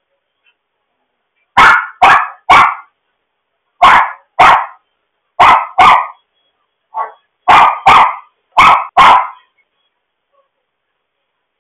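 A dog barking, loud and sharp, about a dozen barks in quick pairs and threes, with one fainter bark near the middle.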